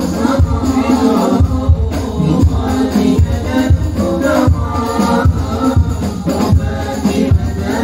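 Sholawat, Islamic devotional songs, sung by a group of men through microphones and a loudspeaker, over a steady beat of hand drums with jingling percussion.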